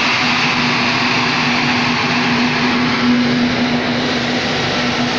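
Steady running noise of a rolling road with a car on it: a constant hum under an even rush of air, holding one pitch with no revving. A brief handling knock on the phone about three seconds in.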